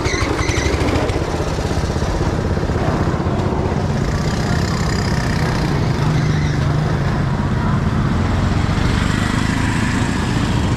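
A small engine running steadily, with voices in the background.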